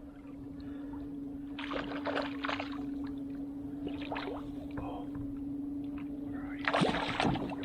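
Water splashing in short bursts beside a kayak as a hooked kokanee thrashes at the surface near the net, over a steady low hum.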